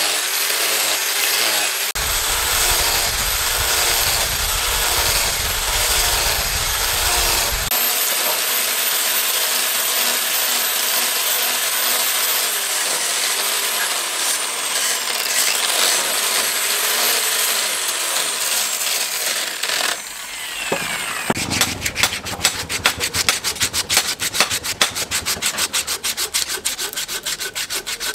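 Angle grinder with a sanding disc running steadily against a wooden axe handle, with a high whine. About twenty seconds in the grinder stops, and hand rubbing on the wooden handle follows in quick, even strokes.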